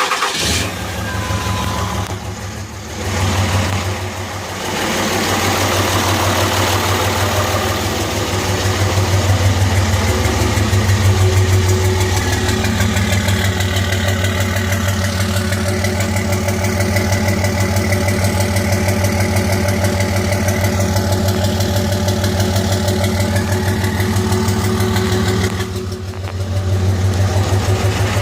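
Cummins 5.9 inline-six turbodiesel in a 2005 Dodge Ram 2500 idling steadily just after starting, with a low hum and even firing pulses; the engine has a faulty number-three injector.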